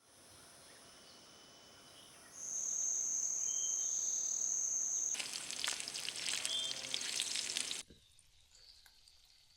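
A steady high-pitched insect trill, then from about halfway bacon sizzling and crackling in a pan for a few seconds. The sizzling cuts off abruptly.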